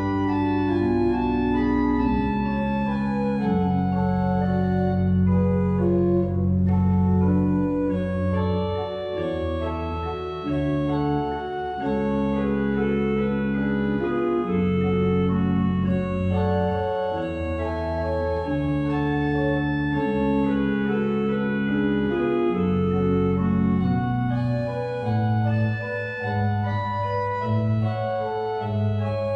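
Eisenbarth pipe organ being played: sustained chords on the manuals over a moving pedal bass line.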